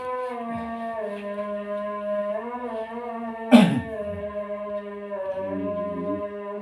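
A long, drawn-out, wavering voice-like tone, held for several seconds and stepping slowly down in pitch. A single sharp slap or knock about three and a half seconds in is the loudest moment.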